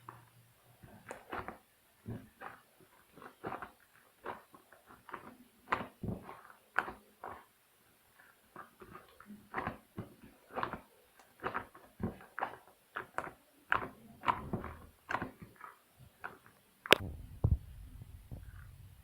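Slime being squeezed and poked by hand, making irregular sticky clicks and little popping squelches, one to three a second. Near the end a sharp knock is followed by a low rumble.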